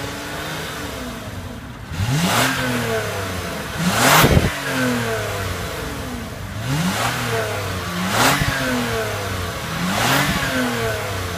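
2014 Lexus ES 350's 3.5-litre V6 heard at the exhaust, idling and revved in about five quick blips. Each one rises and falls back to idle, and the one about four seconds in is the loudest.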